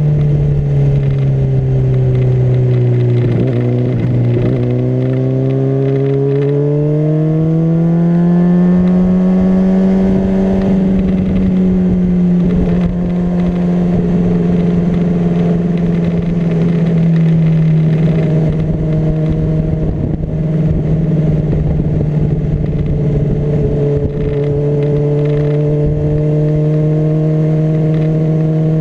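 Honda CBR600RR's inline-four engine running under way: the revs ease down over the first few seconds, climb smoothly for several seconds, then hold nearly steady.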